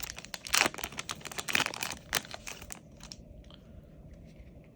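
Foil trading-card booster pack crinkling and tearing as it is ripped open, in a run of crackly strokes for about two and a half seconds, then only faint ticks.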